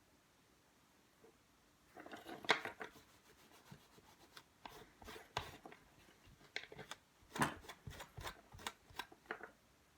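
Small tools and parts being handled on a workbench: irregular scraping and rubbing with light clicks, starting about two seconds in, with a quick run of clicks near the end.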